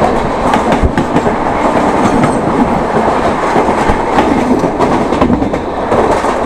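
Rumble and clatter of a passenger train passing close by on the next track, heard at the window of a moving train, with rapid wheel clicks over the rail joints.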